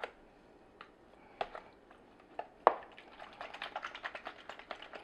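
Slotted plastic spoon stirring oil-coated raw shrimp in a plastic tub: wet clicks and taps of the spoon against the shrimp and the tub. There are a few separate knocks at first, then a quick run of small clicks near the end.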